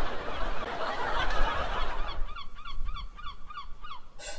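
A rushing noise in the first half gives way, about two seconds in, to a quick series of short honking bird calls, about four a second.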